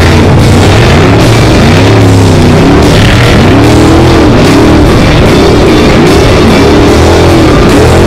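Loud rock music with drums and guitar, with an off-road race vehicle's engine underneath, its pitch rising and falling over and over as it drives.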